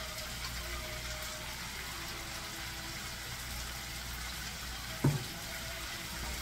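Pork chops sizzling steadily in a frying pan in a soy, oyster-sauce and rum glaze. A single sharp knock about five seconds in.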